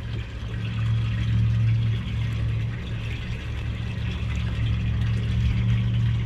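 Steady low motor hum aboard a small fishing boat, unchanging in pitch, over a haze of water noise.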